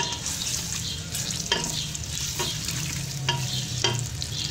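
Sliced onions sizzling in hot cooking oil in a metal pressure cooker pot, stirred with a spatula that scrapes and knocks against the pot about six times.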